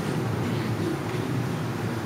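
Steady low rumbling background noise of a large hall, with no distinct events.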